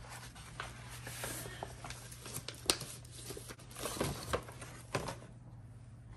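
Kraft paper bag rustling and crinkling as it is unfolded and opened, with a run of sharp paper crackles, the loudest about two and a half seconds in. The crackling stops about five seconds in.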